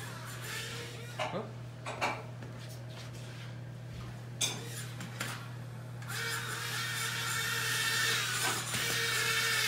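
Tiny electric ducted fans of a Blade Inductrix Switch hovercraft whining, getting much louder about six seconds in as it speeds up, with a few sharp clicks and knocks earlier on.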